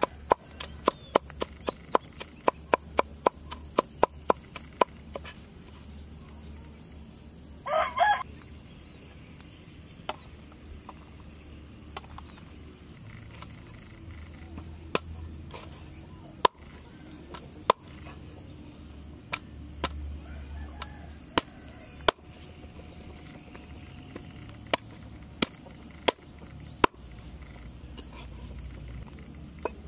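Steel cleaver chopping on a wooden chopping block: a fast run of chops, about three to four a second, mincing garlic for the first few seconds, then slower single chops through raw chicken feet every second or two. A chicken calls once, briefly, about eight seconds in.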